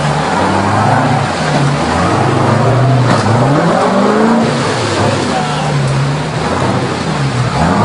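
Truck engine running steadily under load, its note dipping and climbing again about three seconds in and once more near the end.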